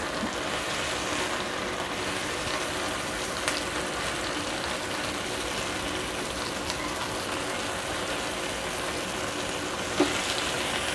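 Chicken shashlik skewers frying in a pan with a steady sizzle, with a light click about three and a half seconds in and another near the end.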